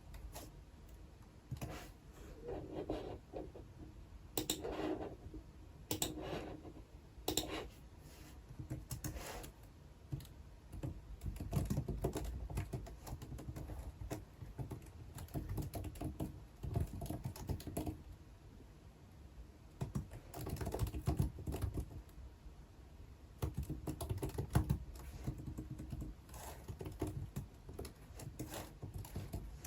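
Typing on a computer keyboard in irregular runs of keystrokes, with short pauses between runs.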